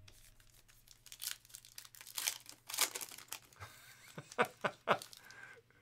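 Foil wrapper of a Panini Illusions football card pack being torn open and crinkled by hand: a run of irregular, crackly rustles from about a second in until near the end.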